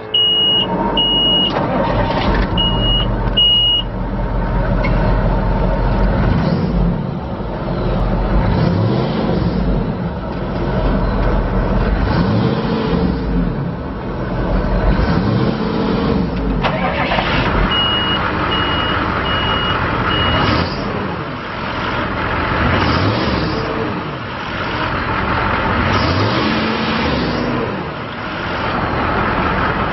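GM 6.5-litre V8 diesel of an Athey Mobil Sweeper street sweeper starting up and running, revved up and down several times. A high beeping alarm sounds in a group of about four beeps at the start and again about 18 seconds in.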